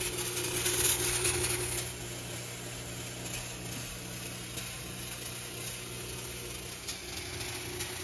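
Fog machine running: a steady electric buzz from its pump, with fog hissing out, the hiss loudest in the first couple of seconds and then easing.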